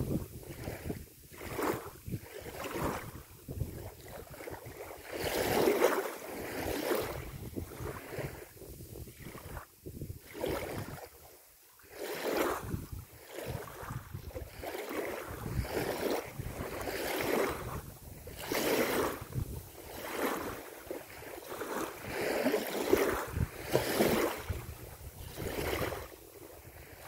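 Wind and small river waves lapping, the noise swelling and fading every second or two.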